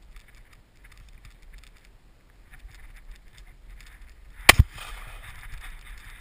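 A single loud double-barrelled shotgun shot about four and a half seconds in, fired at a rabbit and missing, with a short trailing echo. Before it, faint footsteps and rustling through grass.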